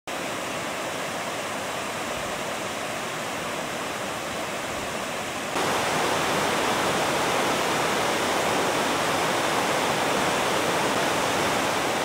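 Water pouring in a wide curtain over a stepped concrete check-dam weir, a steady rushing sound that steps up louder a little past halfway.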